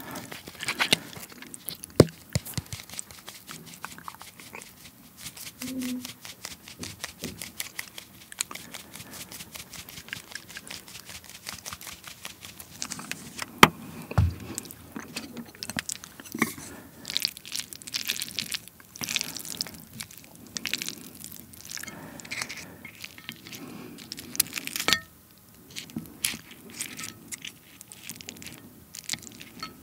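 Korean red chili powder shaken from a shaker bottle over a plate of sauced Jjapaghetti noodles: a long run of rapid light ticks and rattles, with a single thump about halfway through and further clusters of crisp shakes after it. Near the end, wooden chopsticks work into the noodles with soft clicks.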